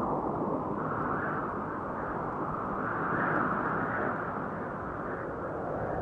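A DJI Phantom 1 quadcopter's motors and propellers in flight, heard from the GoPro mounted on it as a steady, muffled rush that swells and eases a little.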